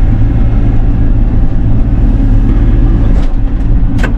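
Bobcat E42 mini excavator's diesel engine running steadily under work, a loud, even low hum, with one sharp knock near the end.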